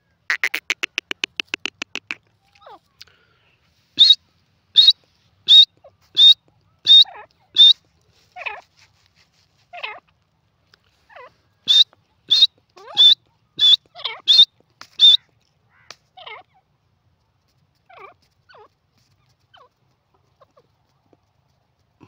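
Grey francolin calling: a fast rattling trill at the start, then two runs of six loud, shrill, high notes about two-thirds of a second apart, with softer, lower notes between and after.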